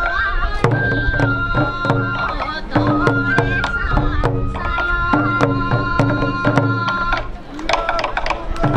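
Sansa odori festival music: bamboo flutes playing a held, stepping melody over dense, steady taiko drum beats, with a brief lull about three quarters of the way through.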